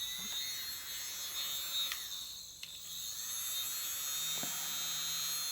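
Miniature electric hair dryer running: a small motor giving a steady high whine over a low hum, with a brief dip about two seconds in. It blows only a weak stream of air, too weak to move the paint.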